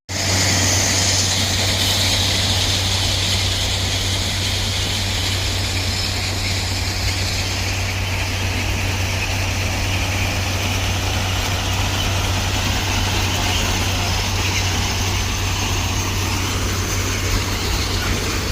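Heavy railway track machine's engine running steadily, a constant low hum under a broad even mechanical noise.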